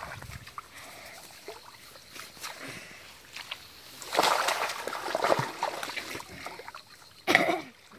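Splashing and sloshing in shallow muddy water as a person and a crocodile struggle in it. The splashes grow loud from about four seconds in, with one sharp splash near the end.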